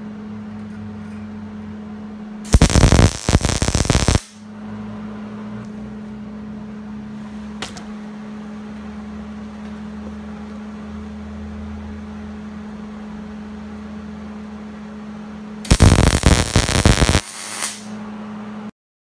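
MIG welder laying two short tack welds on steel tubing: each a loud crackling sizzle of about a second and a half, the first a few seconds in and the second near the end, over a steady electrical hum.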